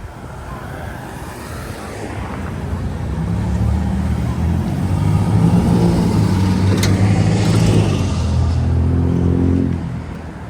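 A motor vehicle with a low, heavy engine note passing close by in traffic, growing louder over several seconds and dropping away near the end. A single sharp click sounds partway through.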